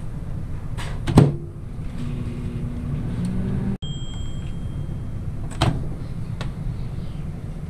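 Microwave oven: the door shuts with a knock about a second in, the oven hums as it runs, then a long high beep sounds and the door latch clicks open.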